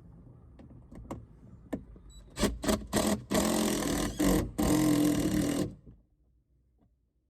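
Power drill run in a few short trigger pulls, then two longer steady runs, putting a fastener through a tractor cab's headliner. It stops suddenly near the end, after a few faint clicks at the start.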